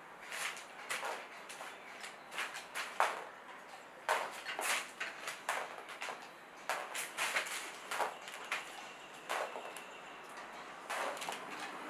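Irregular short swishes and taps, one to three a second, as white paint is flicked and spattered onto a canvas lying flat.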